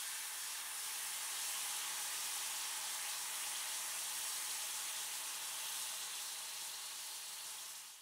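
An egg sizzling as it fries in a frying pan: a steady hiss that fades out near the end.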